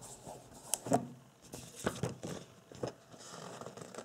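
Hands pressing and smoothing a paper sticker label onto the lid of an aluminium screw-lid tin: faint rustling and scattered small clicks, with a light knock about a second in.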